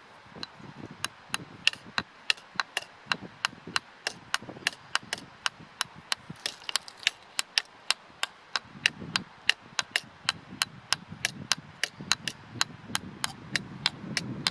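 Sticks knocked on wood like a drum in a steady beat of sharp clicks, about three a second.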